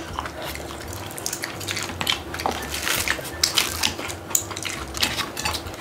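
Scattered clicks and taps of forks and chopsticks on dishes, with kitchen scissors snipping through a cheese-sausage corn dog.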